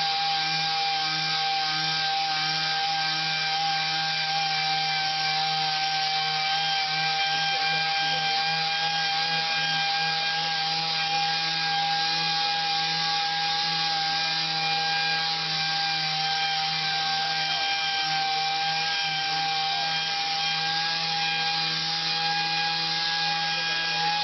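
Random orbital (DA) sander running steadily with 800-grit paper on a Corian solid-surface countertop, wet-sanding out a deep scratch. It runs at an even pitch throughout and winds down at the very end.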